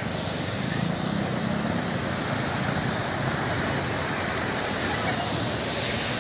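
Steady rushing noise of floodwater and road traffic on a flooded city street.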